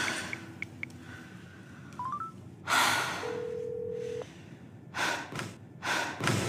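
Digital door lock keypad beeping: a quick run of three rising beeps about two seconds in, then a single low tone held for about a second, the lock refusing the code. Heavy gasping breaths come around the beeps.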